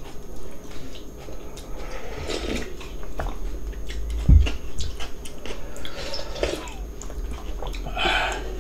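Eating sounds from cold young-radish water-kimchi noodles and steamed dumplings: chewing, small clicks of utensils on bowls and a few short bursts of slurping noodles and broth, with one dull low thump about four seconds in.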